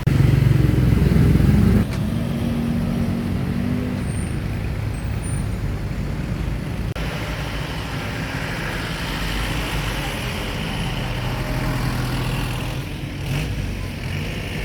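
Road traffic: a vehicle engine runs loudly close by for about the first two seconds and drops off abruptly, then steady engine hum and traffic noise carry on.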